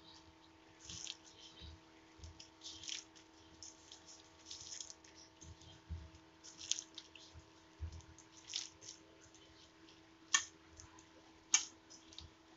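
A hand squeezing and mixing chopped green onions into a thick gram-flour (besan) batter in a steel bowl: irregular wet squishing and scraping, with two sharp clicks about a second apart near the end. A faint steady hum lies underneath.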